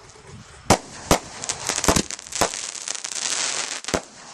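Firecrackers going off in an irregular run of sharp bangs, thickest about a second and a half in, over a crackling hiss that dies away near the end.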